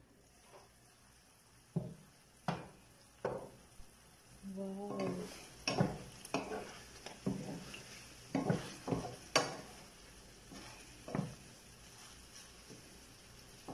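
A wooden spatula stirs and scrapes pork adobo in a nonstick frying pan, knocking against the pan a few times in the first seconds and then repeatedly through the middle. Under it the simmering sauce gives a faint steady sizzle.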